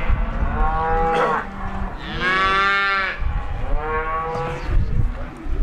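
Calf bawling three times, the middle call the loudest and highest-pitched.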